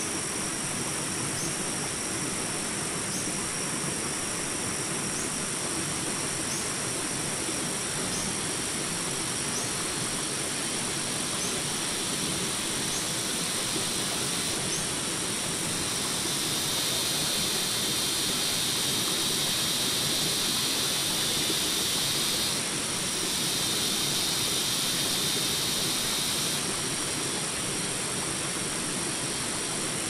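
Shallow rocky stream rushing over rapids, a steady hiss of water. Short high bird chirps repeat about every second and a half through the first half, and about halfway through a dense, shrill high chorus sets in for some ten seconds, with a brief break.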